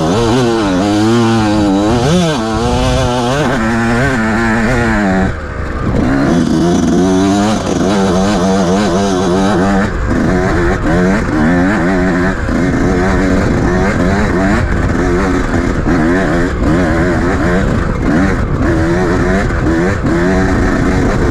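Enduro dirt bike engine revving hard, its pitch rising and falling again and again with the throttle, with a brief dip about five seconds in.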